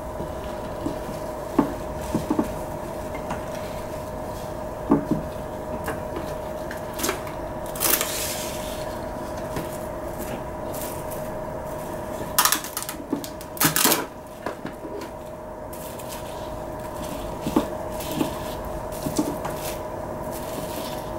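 Kitchen paper and plastic cling film being handled on a ceramic plate: soft rustling with a few light knocks. There are louder crinkles of the cling film around the middle as it is drawn over the plate. A faint steady hum runs underneath.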